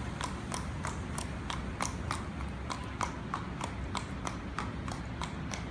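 Hoofbeats of a Thoroughbred mare walking on pavement: an even clip-clop of about three to four hoof strikes a second.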